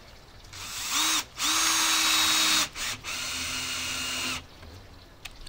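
Cordless drill driving screws into a wooden pallet to fasten a pump to it: a short run, a longer steady run, a brief blip, then a quieter, higher-pitched run that stops about four and a half seconds in.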